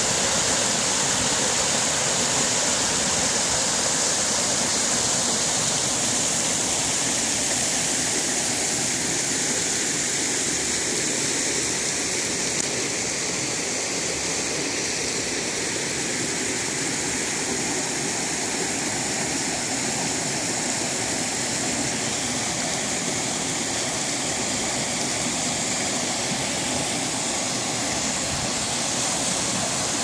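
Small creek cascade: water pouring over low rock ledges in a steady rush, dipping slightly in loudness in the middle.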